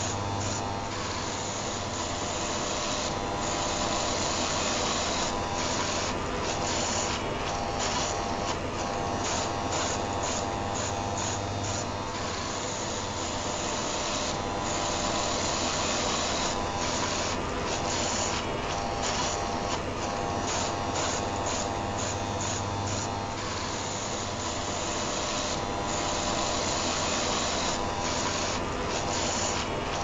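A rotary electric shaver motor running continuously, mixed with the steady whir of an electric heater, heard as an unbroken buzzing hiss over a low hum with a faintly flickering top.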